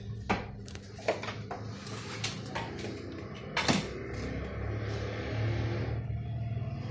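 A few sharp knocks and clicks as equipment is handled and set down on an electronics workbench, the loudest about three and a half seconds in, over a steady low electrical hum.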